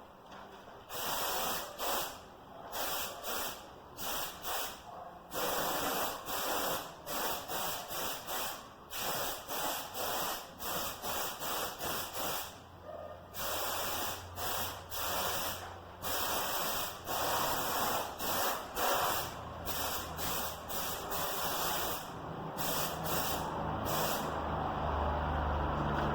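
Spray paint being sprayed in many short and longer bursts of hiss, broken by brief pauses, as the box is given a coat of paint.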